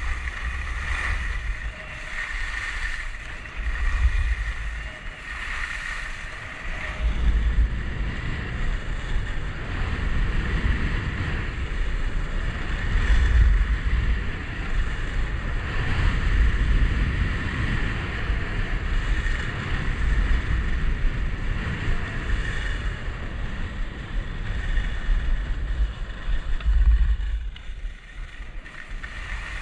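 Wind buffeting a GoPro's microphone during a downhill ski run, a low rumble that swells and fades, over the steady hiss and scrape of skis on packed snow. The rumble drops off briefly near the end.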